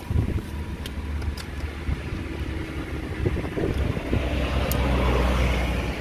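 Wind rumbling on the microphone, swelling to its loudest about five seconds in, with a few faint clicks from a bicycle chain being worked by hand.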